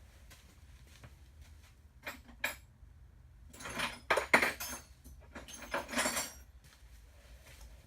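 Metal hand tools or parts clinking and clattering: two light clicks, then two bursts of rattling metal about four and six seconds in.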